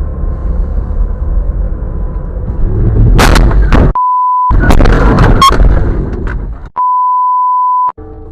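Two censor bleeps, steady 1 kHz tones with all other sound cut out: a short one about four seconds in and a longer one of about a second near the end. Before and between them, loud harsh noise over a low rumble.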